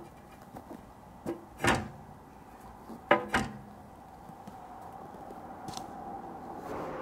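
Metal clanking: about four sharp knocks with a brief ringing tail, the loudest a little under two seconds in and just after three seconds. A low, steady rushing noise slowly builds toward the end.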